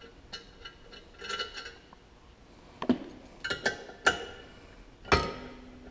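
Metal clinks and knocks as bolts are taken out of a Can-Am Maverick X3's aluminum secondary clutch with a ratchet. There is a short ringing clink a little over a second in, several sharp taps around three to four seconds, and the loudest knock near the end.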